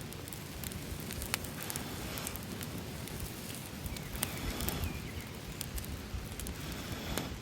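Wood campfire crackling, with sharp pops scattered through, over a steady rush of flowing water.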